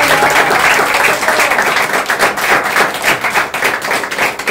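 Guests applauding in steady, dense clapping, with a few voices calling out in the first second or so, right after the wedding ring is placed.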